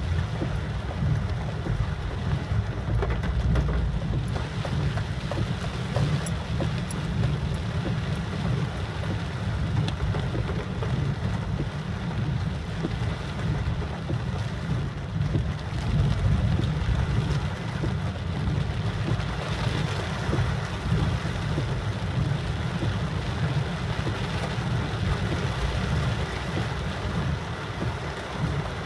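A car driving in the rain: a steady low rumble of engine and road, with the hiss of rain and wet tyres and scattered light ticks of raindrops.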